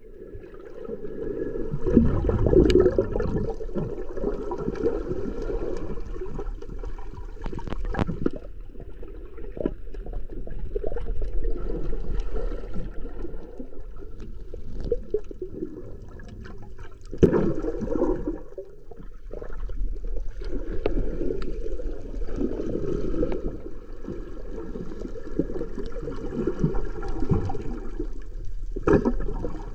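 Muffled water churning and gurgling around a camera held underwater while snorkelling, with a few sharp knocks.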